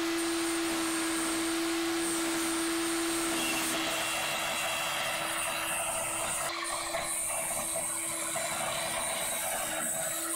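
Mini hobby table saw running with a steady motor hum and a high whine while thin wooden stock is pushed through the blade, cutting 6 mm pieces.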